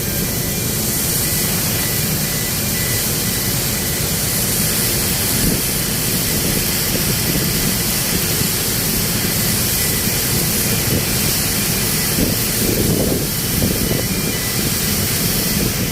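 Cargo ship loading equipment giving off a loud, steady hiss over a low mechanical rumble, with a brief swell in the rumble about thirteen seconds in.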